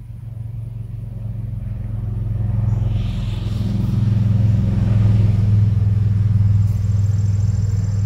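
A motor vehicle going by: a low engine rumble that builds over the first few seconds, is loudest past the middle, and starts to fade near the end.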